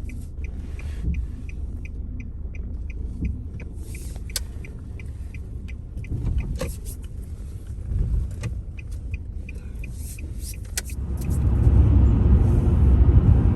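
Car running on the road: a steady low rumble with a faint regular ticking, about three ticks a second, for the first ten seconds. The rumble grows louder about eleven seconds in.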